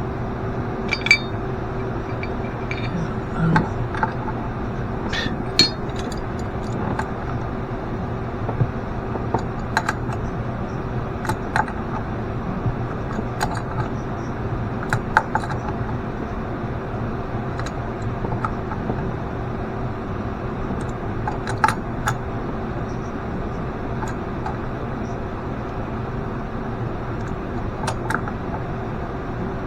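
Scattered light metallic clicks and clinks, like small parts and hand tools being handled, over a steady mechanical hum.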